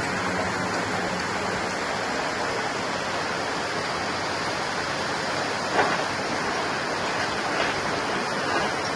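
Excavator with a rock bucket running on site: a steady, even noise, with one short knock about six seconds in.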